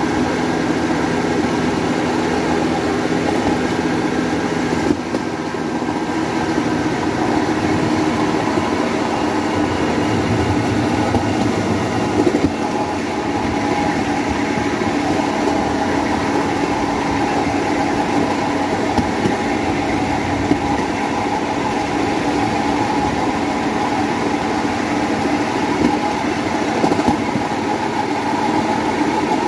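Motorcycle engine of a motorodillo rail cart running steadily as the cart rolls along the track, with the rumble of its rollers on the rails. The engine note shifts about five seconds in, and there are a few sharp clicks.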